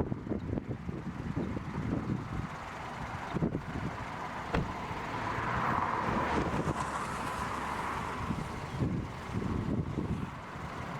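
Gusty wind buffeting the microphone in irregular low rumbles, with a steady rushing noise that swells in the middle and then fades.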